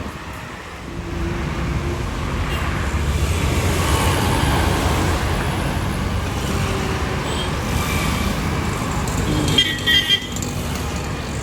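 Steady rumble of road traffic, with a few short horn toots about ten seconds in.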